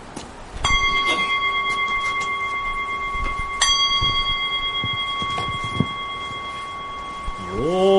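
Small Buddhist bell struck twice, about three seconds apart, each strike ringing on with a steady high tone. A man's sutra chant begins near the end.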